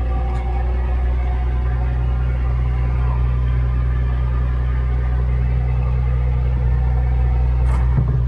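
Fishing boat's engine running steadily, a loud, even low drone. A brief click near the end.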